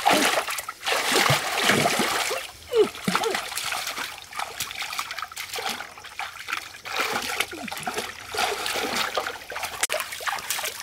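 Shallow stream water splashing and sloshing as a person wades through it and gropes with her hands for fish, loudest in the first couple of seconds.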